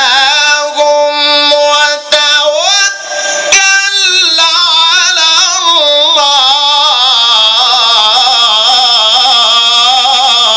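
A man's high voice chanting Quran recitation in the ornamented mujawwad style, amplified through a microphone. He holds drawn-out melismatic notes: the pitch climbs about two and a half seconds in, breaks briefly, then carries one long wavering note.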